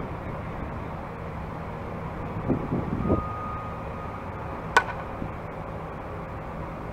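A softball bat hits a pitched softball once, about two-thirds of the way in: a sharp crack with a brief metallic ring, over steady background noise.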